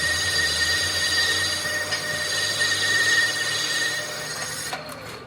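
Steady high-pitched metal squeal from shop machining work, cutting off about five seconds in.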